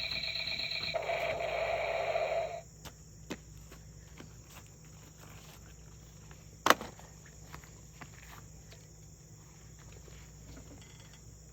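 Electronic sound effect from a battery-powered toy weapon: a rapidly pulsing tone that gives way to a hissing burst and cuts off about two and a half seconds in. A single sharp click comes about halfway through, along with a few fainter ticks from handling the plastic toy.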